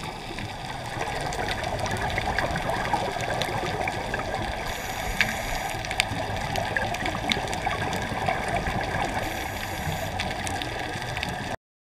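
Underwater ambient noise heard at a rocky reef: a steady muffled water rush with fine crackling and a few sharp clicks, cutting off abruptly near the end.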